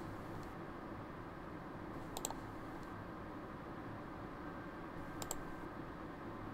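Computer mouse clicking in two quick clusters of a few clicks each, about three seconds apart, over a steady low hum.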